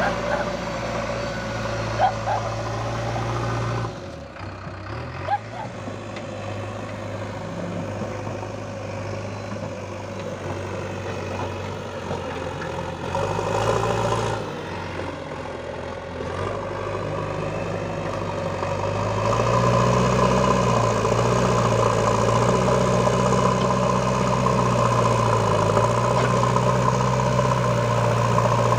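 JCB backhoe loader's diesel engine running while the front loader bucket scoops and pushes soil. It drops to a quieter note about four seconds in, then runs louder and harder with a wavering pitch for the last third as the bucket pushes into the dirt pile. A couple of short sharp clicks sound early on.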